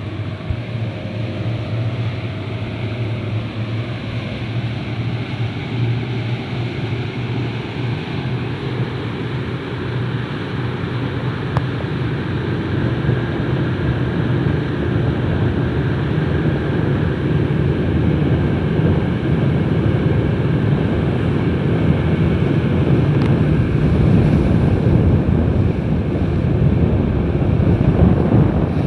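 Speedboat engine running under way, with water rushing in the wake and wind buffeting the microphone; the rush grows steadily louder as the boat gains speed.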